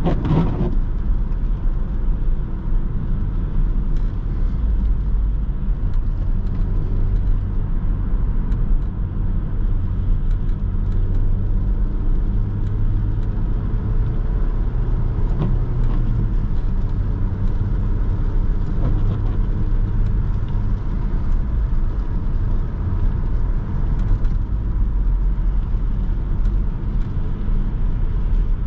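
Cabin sound of a Renault Laguna II's 1.8-litre 16-valve four-cylinder petrol engine cruising at a steady pace, a constant low drone under tyre and road noise on a wet road. A brief falling swish comes at the very start.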